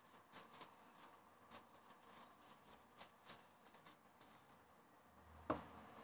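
Faint rustling and soft ticks of blue paper roll wiping small plastic heater knobs, with one sharper click about five and a half seconds in as a knob is set down on the workbench.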